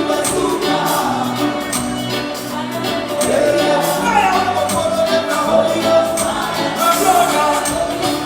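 Live band music with singing and backing vocals over a steady drum beat.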